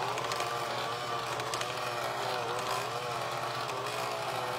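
Electric hand mixer running, its beaters whipping eggs into a thick cake batter in a glass bowl. The motor's steady whine wavers slightly up and down in pitch.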